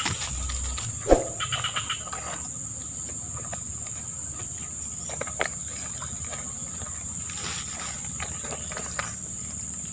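Steady high-pitched drone of insects. About a second in there is a sharp knock, followed by a quick run of short high chirps.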